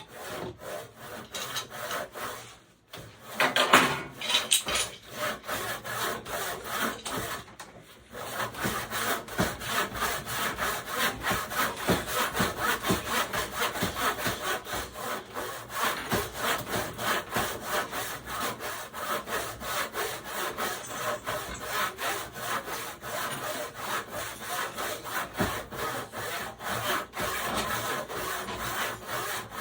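Thrift-store handsaw cutting through wood, the blade rasping back and forth in steady, even strokes. The sawing pauses briefly twice in the first eight seconds, then runs on evenly.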